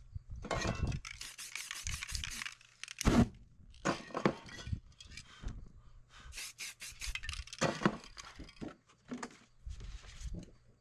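Aerosol spray-paint can spraying in several short hisses, with clicks, knocks and scrapes of cans and canvas being handled in between.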